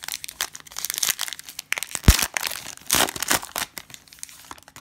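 Foil trading-card pack crinkling and tearing as it is ripped open by hand, in loud crackly bursts, with a dull thump about two seconds in.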